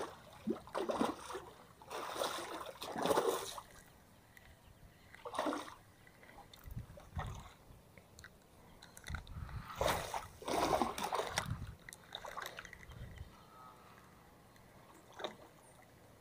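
River water splashing and sloshing below a concrete weir in short, irregular bursts, strongest about two to three seconds in and again about ten seconds in, with a low rumble in the middle.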